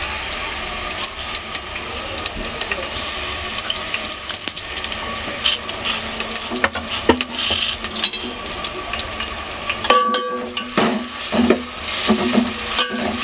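Sliced onions sizzling and crackling steadily in hot oil in a steel pot. A spoon stirs and knocks against the pot near the end.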